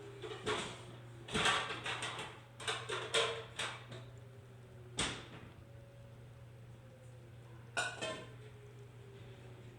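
Outdoor warning sirens winding down at the end of a test, their faint tones slowly falling in pitch. Over them come a series of loud, sharp clicks and knocks close by.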